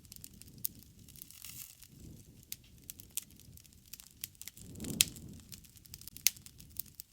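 Wood fire crackling, with irregular sharp snaps and pops over a low rumble of burning; the loudest pop comes about five seconds in.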